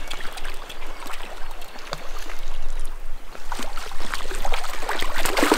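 A hooked rainbow trout splashing irregularly at the surface of a shallow stream, over the steady running of the water.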